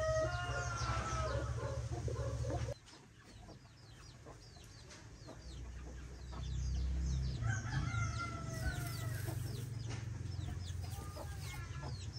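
Rooster crowing at the start and again about seven to eight seconds in. Between the crows come many short, high, falling chirps from other chickens. A low rumble runs under the first crow and returns near the second.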